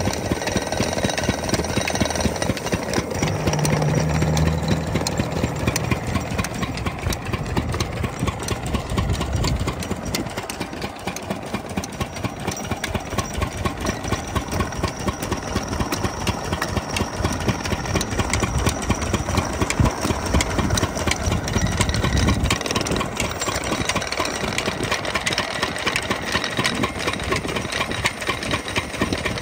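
Stationary single-cylinder diesel engine running steadily with rapid, even knocking beats as it drives an irrigation water pump through a flat belt. A deeper hum swells in twice for a few seconds.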